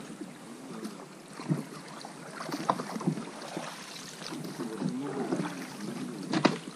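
Water gurgling and splashing around an inflatable boat drifting down a small river, with paddle splashes and a few sharp knocks against the boat. The sharpest knock comes near the end.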